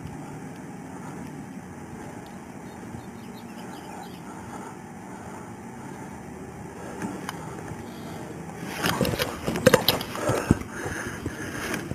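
Steady background noise, then about nine seconds in a cluster of scraping and rustling on a body-worn camera, as the officer's uniform sleeve moves against it.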